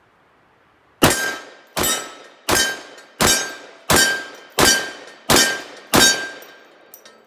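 Eight shots from a .458 SOCOM AK-pattern rifle fired in quick semi-automatic succession, about one every 0.7 s, starting about a second in. Each report is sharp and loud and trails off before the next.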